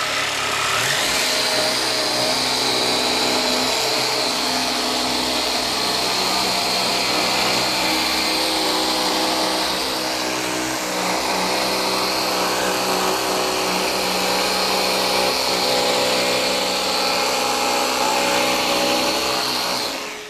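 Festool PSC 420 Carvex 18V brushless cordless jigsaw sawing steadily through plywood along a curve, with a small dust extractor running on the saw's hose port; a high whine holds steady throughout.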